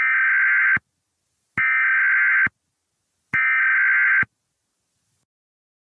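Three bursts of EAS/SAME digital header data tones, the harsh warbling code that opens an emergency alert on NOAA Weather Radio, each a little under a second long with about a second of silence between them. They signal the start of an alert message.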